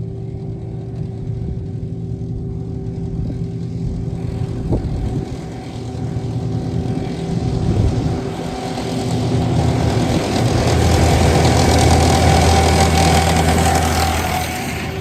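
A vehicle engine running steadily, then growing louder and revving harder from about halfway in, and easing back near the end.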